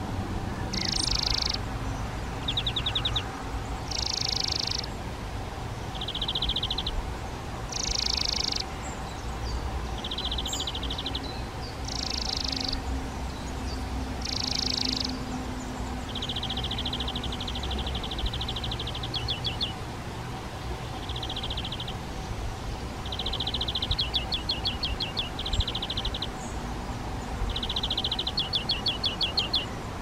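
Flycatchers calling: short high calls repeated every two to four seconds, alternating with quick trains of rapid ticking notes.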